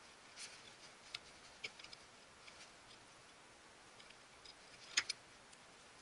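Faint scattered small clicks and ticks of hands handling a metal lamp socket, electrical cable and screwdriver during wiring, with a sharper double click about five seconds in.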